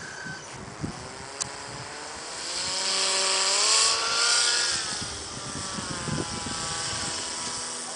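Motor and propeller of a radio-controlled paraglider trike flying low past. Its pitch rises and the sound swells to a peak about four seconds in, then the pitch sinks and the sound eases off to a steadier level.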